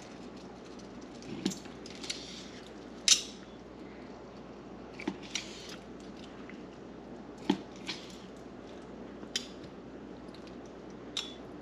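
A knife slicing through cooked octopus tentacles on a bamboo cutting board, held with a fork: a handful of sharp, irregular clicks and knocks as the blade and fork tines meet the board, the loudest about three seconds in and again about seven and a half seconds in.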